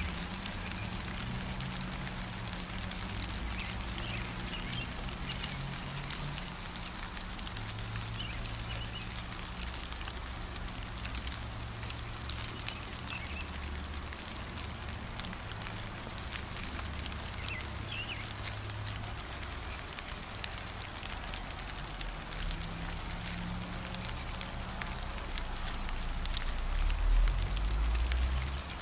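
Steady rain falling on leafy garden plants: an even hiss dotted with many small drop ticks. A few faint bird chirps come through, and a low rumble swells near the end.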